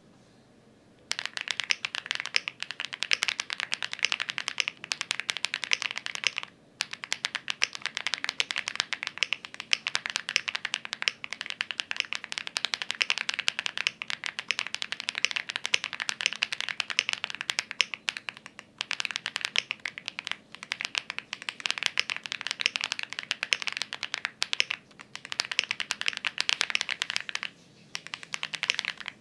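Fast continuous typing on a Lucky65 v2 mechanical keyboard with AKKO Cilantro switches: a dense run of key clacks. It starts about a second in and breaks off briefly a few times.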